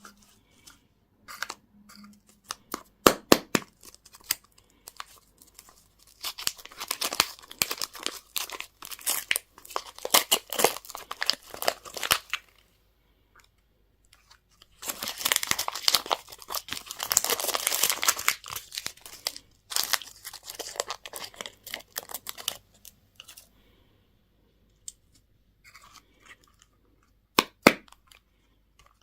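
Candy wrappers crinkling and being torn open by hand, in two long stretches of dense crackling, with sharp clicks and taps before and between them.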